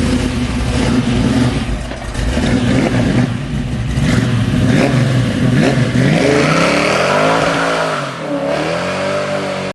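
Car engine running and revving, its pitch rising and falling several times in the second half; it cuts off abruptly at the end.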